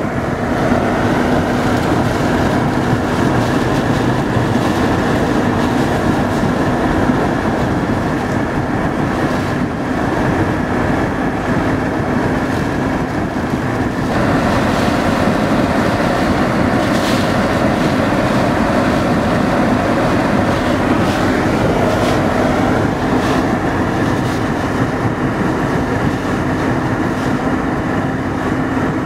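Hurricane wind and rain buffeting a car, a steady rushing noise with a low, even hum from the car underneath.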